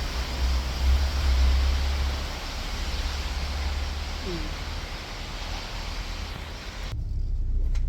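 Steady, loud rushing noise over a low rumble, vehicle and road noise; about seven seconds in it cuts off abruptly to a quieter low rumble, like a car heard from inside the cabin.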